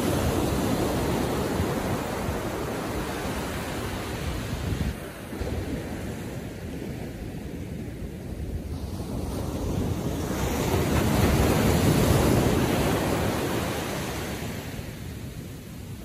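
Ocean surf washing onto a sandy beach. The rush of the water is loud at first, eases off, then swells again as a wave breaks about three-quarters of the way through, and fades as it draws back.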